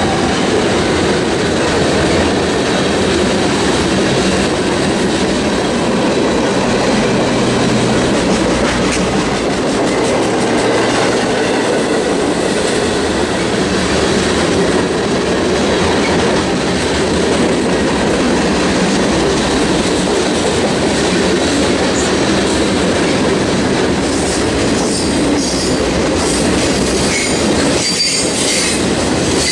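Loaded freight cars (covered hoppers and boxcars) rolling steadily past on the rails, wheels clattering over the track. About three quarters of the way through, a high-pitched wheel squeal joins in.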